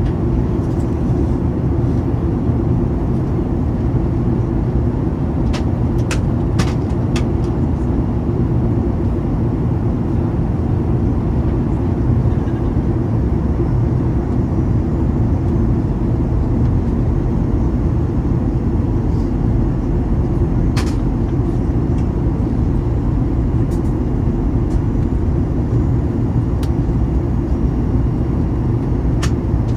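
Steady low rumble of engine and airflow noise inside a Boeing 737-900ER cabin, with a few faint clicks.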